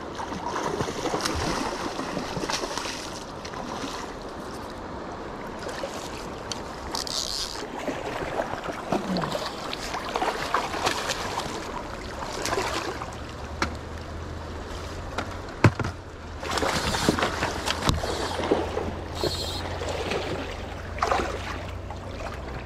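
Irregular splashing and sloshing of river water as a hooked salmon thrashes at the surface and is drawn into a landing net. A single sharp knock about two-thirds of the way through.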